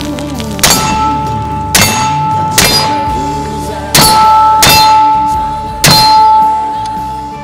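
Bullets striking an AR550 steel target plate six times. Each hit is a sharp clang, and the plate rings on with a steady metallic tone that fades out near the end.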